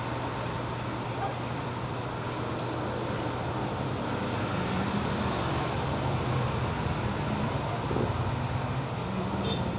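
Corded electric hair clipper running with a steady hum as it cuts hair on top of a man's head.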